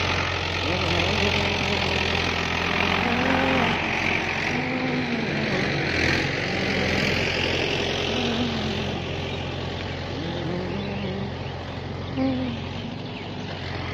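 Diesel farm tractor engine running steadily with a low, even drone, the tractor working the field.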